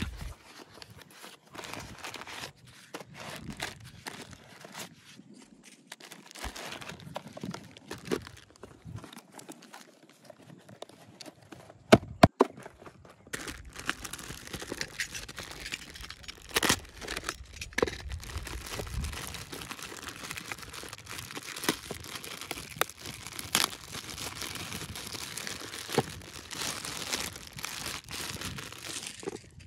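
Packaging being torn open and crinkled by hand during a toy model unboxing, an irregular rustle with scattered small clicks and knocks. Two sharp clicks about twelve seconds in are the loudest sounds.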